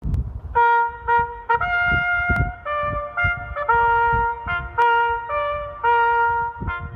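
Outdoor electronic warning siren's loudspeaker playing a trumpet-like tune of separate stepped notes as a test tone, over a low rumble.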